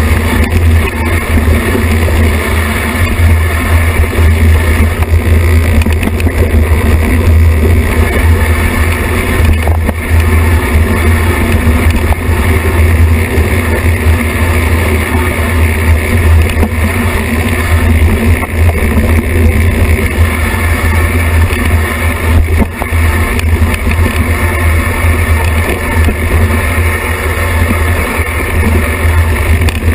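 Steady loud low rumble of wind and trail vibration picked up by a camera mounted on a mountain bike rolling down a dirt singletrack, with a couple of short knocks from bumps.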